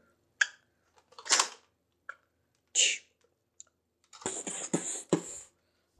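Toy Nerf blaster being reloaded and handled: a few sharp plastic clicks and short scraping rasps, with a quick run of rattling rasps about four seconds in.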